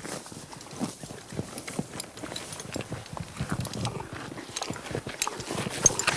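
Horse eating, chewing its feed with a dense, irregular run of crunches and clicks.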